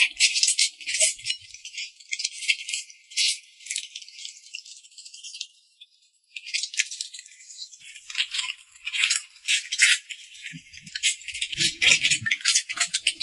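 Close-miked eating sounds of a person tearing and chewing a chicken drumstick with her hands: a dense run of crisp, wet clicks and crackles, with a short break about six seconds in.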